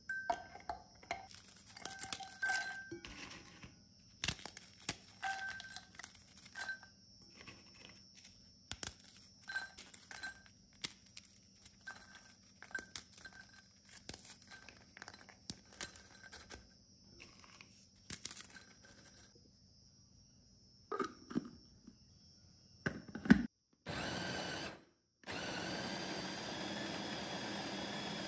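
Packaged Oreo cookies being handled: a run of short clicks and crinkling from the cookies and their wrapper. Near the end, an electric blender starts up in two bursts with a short break, grinding the cookies into crumbs for the crust.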